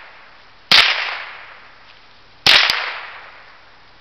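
Two shots from a Ruger 10/22 .22 rimfire semi-automatic rifle, about a second and three quarters apart, each followed by a fading echo. A light click comes just after the second shot.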